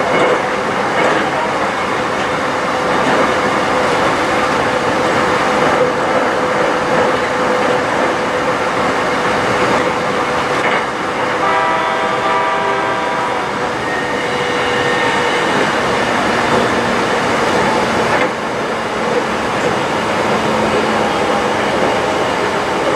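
Aoimori Railway electric train running, heard from inside the passenger car: steady rolling and rail noise, with a steady motor whine through the first half. About twelve seconds in, a brief pulsing ringing of several tones sounds over it.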